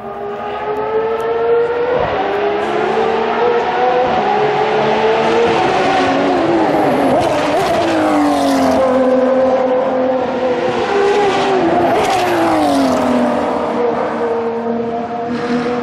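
Ferrari 599XX Evo track cars' V12 engines at high revs, the pitch climbing and falling through gear changes, with a drop as a car passes close and pulls away.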